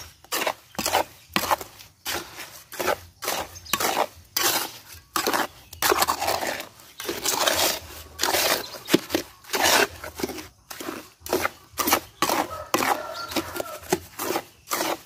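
Steel trowel scraping and stirring wet sand-and-cement mortar in a metal basin. Repeated short scraping strokes come about twice a second, with longer scrapes in the middle.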